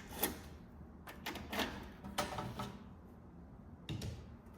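A handful of light clicks and knocks from a metal key cabinet being handled as its door is closed and its wall bracket taken off, the sharpest about a quarter-second in.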